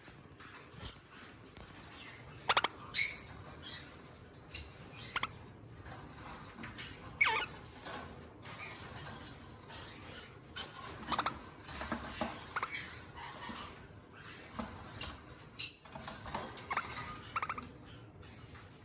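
Pet eastern rosellas calling: about ten short, sharp, high-pitched calls in little groups every few seconds, some sliding down in pitch.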